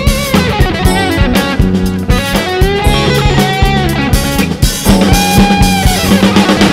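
Band music: guitar lines over a steady drum-kit beat with bass.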